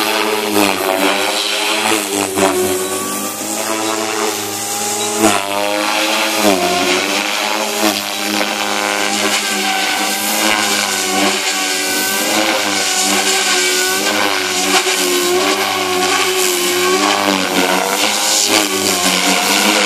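Devil 420 electric RC helicopter flying 3D aerobatics: the motor and rotor whine rises and falls in pitch as the load changes through the manoeuvres.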